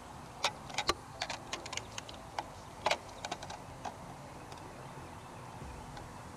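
Small irregular plastic clicks and taps from a factory taillight and a smoked aftermarket taillight being handled and turned over in the hands, a dozen or so light ticks, the loudest a double click about three seconds in. The clicks stop about four seconds in.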